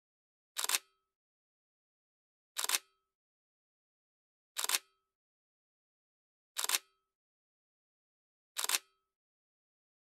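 A short sharp click-like sound with a brief ring, repeated identically five times, one every two seconds, with dead silence between: an edited-in sound effect.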